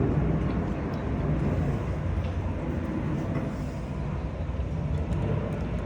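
Steady low rumbling noise with a few faint light clicks.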